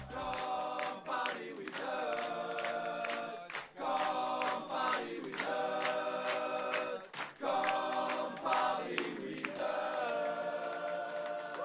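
A group of voices singing together in long held phrases, with little or no instrumental backing, each phrase lasting one to two seconds with short breaks between.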